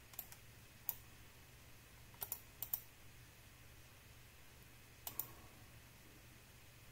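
Faint clicks of a computer mouse and keyboard: about eight sharp clicks, several in quick pairs, over a faint steady low hum.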